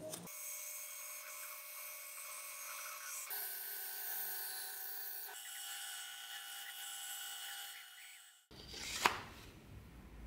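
Benchtop band saw running and cutting thin strips of wood, a steady whine whose pitch shifts twice before it stops suddenly. A single sharp knock follows about a second later.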